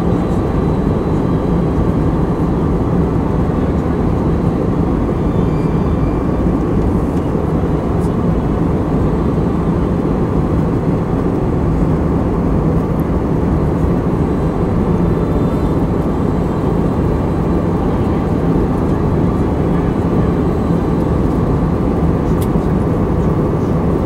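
Steady cabin noise of a jet airliner in flight: engine and airflow noise heard from inside the cabin, with a low steady hum under it.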